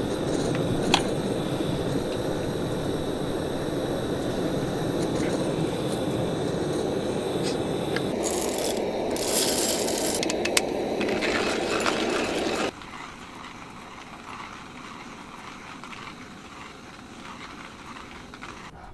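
Gas canister camp stove burning steadily under a kettle, with a click about a second in. About eight seconds in, coffee beans rattle as they are poured into a hand grinder. A little before the end the stove sound drops away suddenly, leaving faint outdoor ambience.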